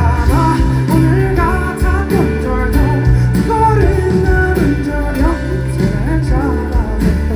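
Live pop-rock band music through a concert sound system: a steady driving bass and drums with a wavering melody line on top.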